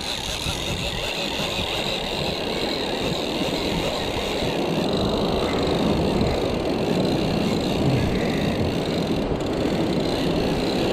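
Steady rushing noise of wind and ocean surf breaking against the cliff, slightly louder in the later part.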